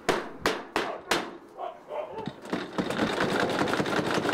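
Four quick knocks on a corrugated sheet-metal gate, about a third of a second apart. From about halfway through, a dense, steady din takes over.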